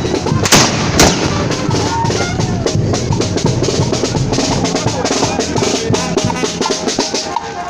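Loud music with a driving drum-kit beat and bass. Two sharp cracks cut through it about half a second and one second in.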